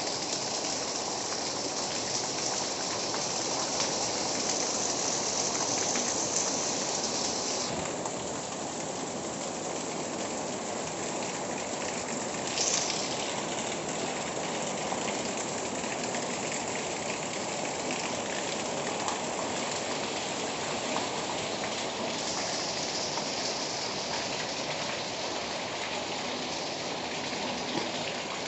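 Heavy rain pouring down steadily, a dense even hiss. The high hiss eases about eight seconds in, surges briefly a few seconds later, and strengthens again near the end.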